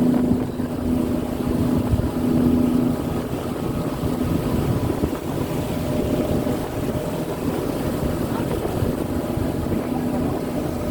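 Boat engine running steadily while under way: a constant drone with a steady low hum.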